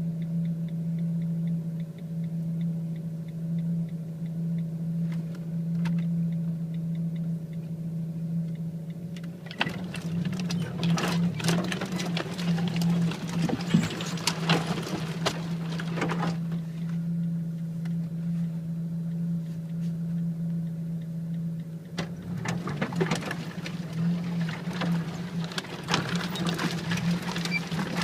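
Vehicle engine running with a steady low drone. Twice, for several seconds each time, dense crackling and scraping rides over it, the sound of the vehicle working along a tight, overgrown lane.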